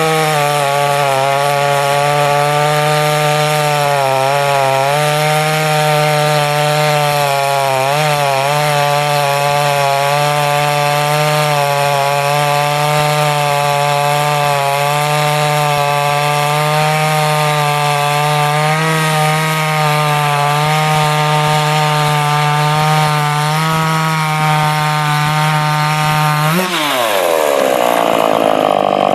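Ported Dolmar 421 two-stroke chainsaw with Picco chisel chain cutting through wood under load, its engine pitch held low and nearly steady through a long cut. Near the end the revs rise sharply as the chain comes free of the wood.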